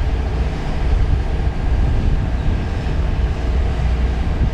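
Steady low rumble of a running vehicle, even and unbroken.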